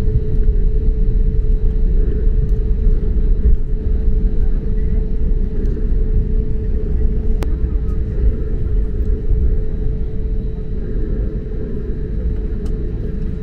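Airbus A321neo cabin noise while taxiing on the engines at idle: a steady low rumble with a constant hum over it, and a single click about seven and a half seconds in.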